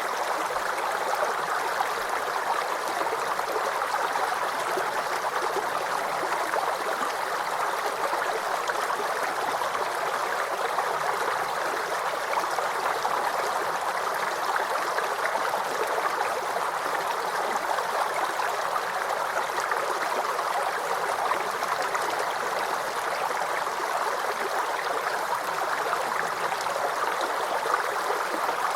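Small brook or creek running over stones, a steady babbling and gurgling of water that flows on without a break.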